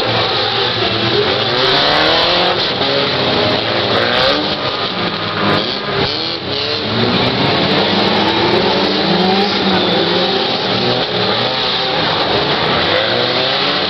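Several stock car engines revving up and down together, their rising and falling notes overlapping over a steady rush of noise.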